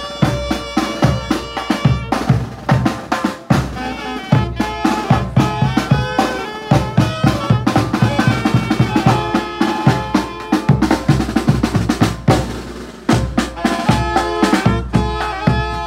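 A Zacatecan-style tamborazo band playing as it marches: saxophones over a steady beat on the tambora bass drum and snare.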